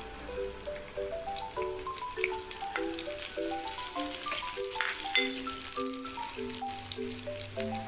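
Sliced shallots, garlic and curly red chilies sizzling in hot oil in a frying pan, stirred with a wooden spatula with a few light taps. Background music of short stepped notes plays over it.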